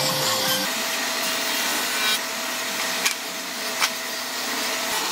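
Electric power-tool motor running with a steady whine, with two sharp knocks about three and four seconds in.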